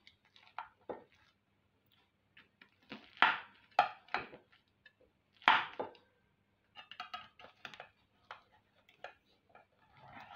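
Metal spatula cutting down through baked cornbread stuffing in a glass baking dish: irregular scrapes and taps of metal on glass, the loudest between about three and six seconds in.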